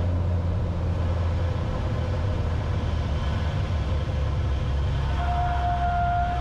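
Cessna 182's piston engine and propeller running steadily at high power during the takeoff roll, heard inside the cabin. About five seconds in, a steady high-pitched tone joins the engine.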